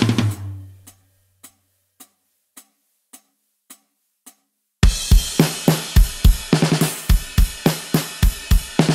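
Programmed drum kit from Addictive Drums 2. A low drum rings out and fades over the first second, followed by soft single ticks on each beat at 106 bpm. About five seconds in, the full kit comes back in with kick, snare and cymbals playing a steady rock beat.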